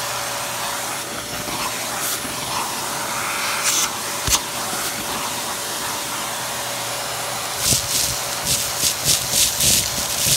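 Vacuum cleaner running steadily with a constant motor whine while its brush nozzle sucks at a tub of dryer lint and grit. About three-quarters of the way through, a quick run of short rattles sets in, two or three a second.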